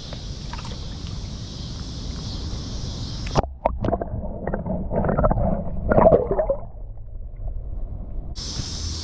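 Water splashing and gurgling as a largemouth bass is let go back into the river. It comes in irregular bursts, loudest about six seconds in. Steady insect buzzing before it drops out suddenly a few seconds in and returns near the end.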